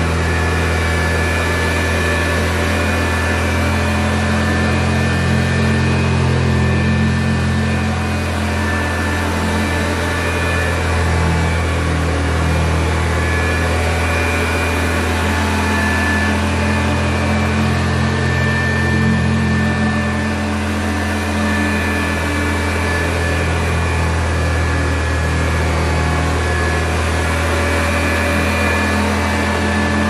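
1960 Hoover Convertible Model 31 upright vacuum cleaner running steadily: a low motor hum with a few steady whining tones above it, rising and easing slightly every few seconds.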